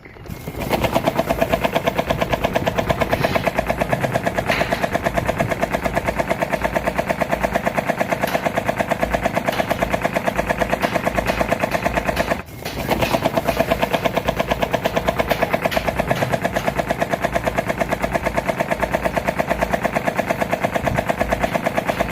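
Electric fan with a broken blade running at high speed, giving a fast, even clatter; it cuts out briefly about halfway and starts again.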